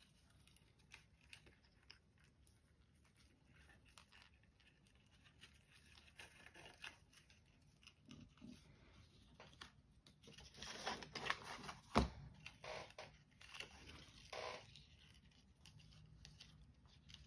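Faint rustling and scraping of paper album pages and a paper cord being handled and threaded through a hole, with scattered small clicks and one sharp tap about two-thirds of the way through.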